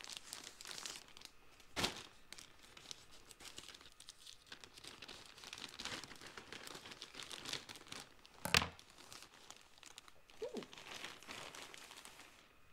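Plastic poly mailer bag crinkling and rustling as it is cut open with scissors and a sweater is pulled out of it, with two sharper crackles, one about two seconds in and a louder one about eight and a half seconds in.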